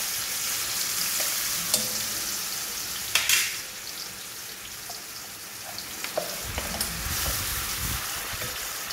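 Onion-tomato masala paste dropped into hot oil in a stainless steel kadai, sizzling steadily, with a brief louder burst about three seconds in. Near the end a wooden spatula stirs the frying paste.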